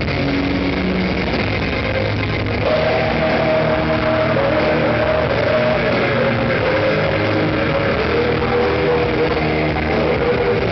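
Live heavy metal band playing: distorted electric guitars, bass, drums and keyboard. About two and a half seconds in, a held melody line comes in over the band and the music gets a little louder.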